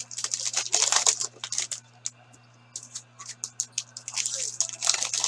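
Foil card-pack wrappers crinkling and trading cards being shuffled and handled: a run of short, crisp rustles that pause briefly about two seconds in, then pick up again.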